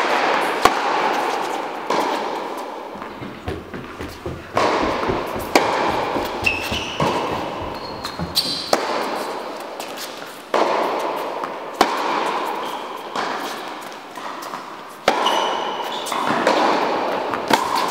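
Tennis rally on an indoor hard court: sharp racket strikes on the ball and ball bounces every second or two, the loudest hits about every three seconds, each ringing on in the hall's echo. Short high shoe squeaks on the court come between the shots.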